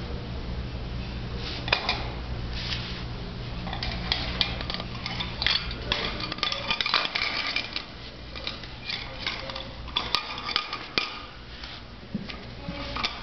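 A small food bowl clattering and knocking on the wire floor of a puppy cage as a chocolate poodle puppy eats from it and pushes it about: irregular clinks and scrapes, thickest in the middle, over a steady low hum.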